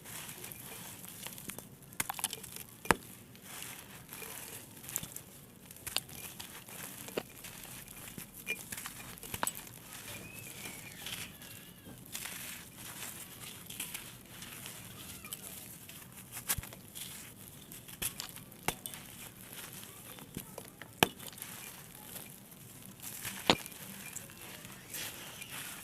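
Small dried blocks of red sandy clay being crushed and crumbled: a continuous gritty crackling with sharp, crisp pops every few seconds as pieces snap.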